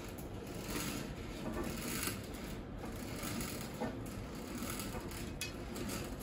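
Steady soft hiss-like background noise with scattered faint crackles and ticks.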